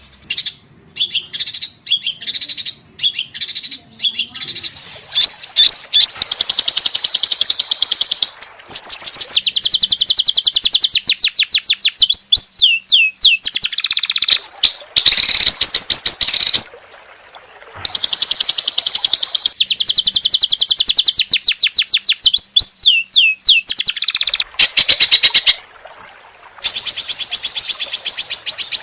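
Songbird singing loudly in long, fast trills of repeated high notes, broken by short pauses. It starts with scattered single short calls and runs into continuous trills a few seconds in.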